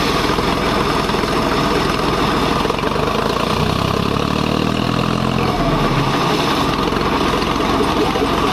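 Sonalika tractor's diesel engine running steadily under load, driving a PTO-operated 4x3 high-head water pump, mixed with the rush of the pump's jet of water spraying from the discharge pipe.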